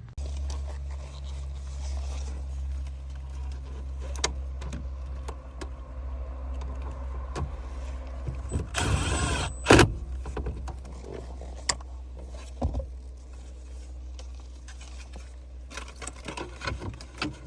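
A car's engine running at a steady low idle inside the cabin, with scattered clicks and knocks from the shifter and cabin. A brief, louder whirring rises and falls about nine seconds in.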